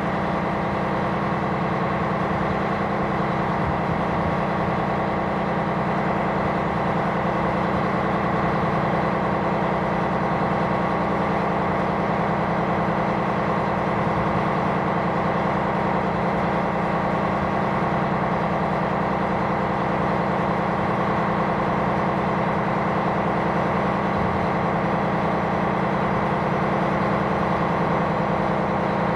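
Steady diesel engine drone from the ships, a constant low rumble with an unwavering hum.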